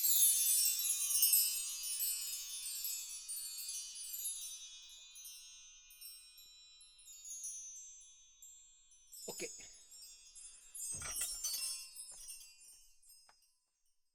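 Bar chimes (a mark tree) strummed with a finger: a cascade of high ringing tones from many small metal bars that fades out over several seconds. About nine and eleven seconds in, the bars are touched again, giving short jingles over a soft thud before they ring down.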